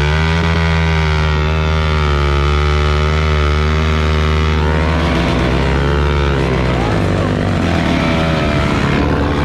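Dirt bike engine running under way at a steady pitch. About five seconds in the revs drop briefly and come back up, and after that they become less even.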